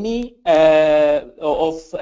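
Speech only: a voice reading out a question, drawing out one vowel for most of a second in mid-sentence.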